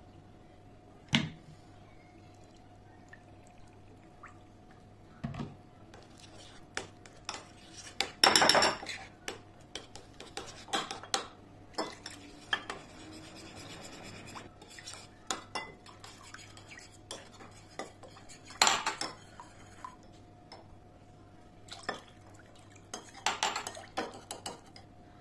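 A metal spoon clinking and scraping against a ceramic bowl while stirring tomato paste and water into a sauce, with a few louder clatters along the way.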